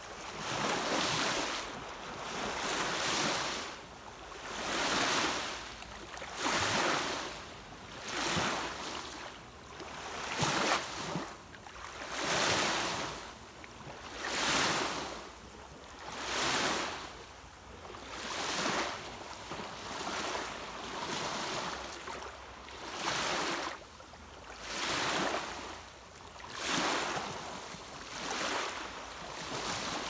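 Small waves lapping and washing onto a shallow sandy shore, one wash roughly every two seconds, each swelling and then falling away.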